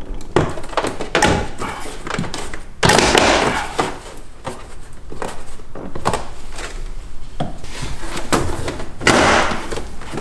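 BMW E46 M3 door panel being pried off by hand: its plastic retaining clips pop loose in a run of sharp snaps and thunks as the panel is worked free. The two loudest bursts come about three seconds in and near the end.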